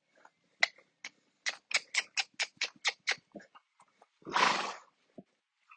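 A dog on a hard floor, its claws clicking in quick runs of about four a second, then one short, rough, noisy sound from the dog about four seconds in.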